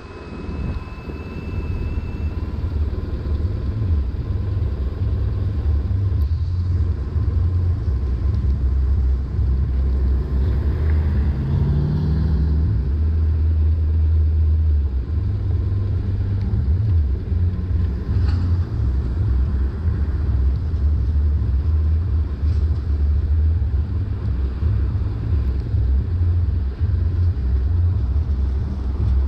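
BMW R1150RT's boxer-twin engine idling with a steady low rumble while the motorcycle stands still.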